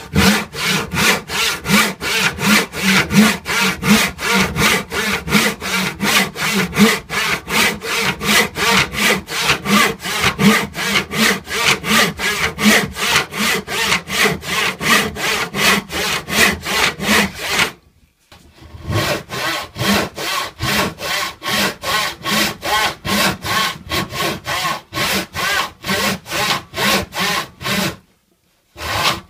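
Wooden-handled handsaw cutting through a wooden board in quick, even back-and-forth strokes, about three a second. The strokes stop briefly about 18 seconds in and again shortly before the end, then carry on.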